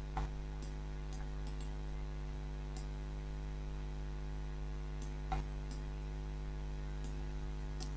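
Steady electrical mains hum with many overtones, picked up by the recording microphone, with a couple of faint clicks.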